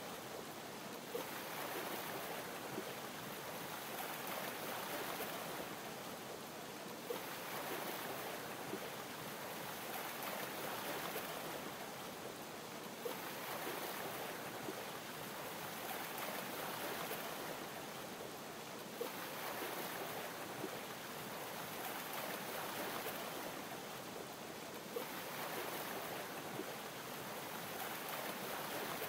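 Ocean waves lapping in slow, even swells about every six seconds, a steady wash of water noise. A faint tick comes once in each swell.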